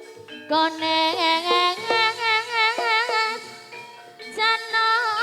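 A solo voice singing a Javanese melody in long, wavering, ornamented notes over a gamelan accompaniment with struck, ringing metal notes. The voice breaks off briefly about four seconds in, then comes back.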